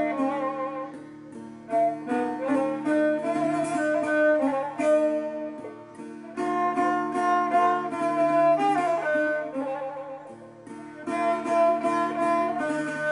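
Solo Persian string instrument playing a melodic phrase, with wavering vibrato on held notes and a sliding note about nine seconds in.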